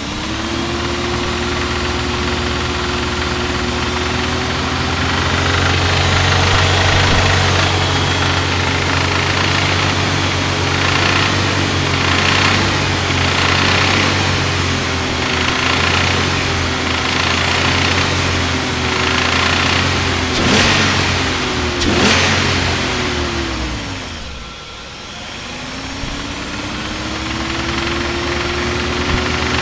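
BMW E34's M50B25 straight-six engine held at raised revs above 2000 rpm with light throttle, with a knocking noise that the owner suspects may come from the VANOS unit. Two sharp clicks come near the middle, after which the revs fall away and then rise again near the end.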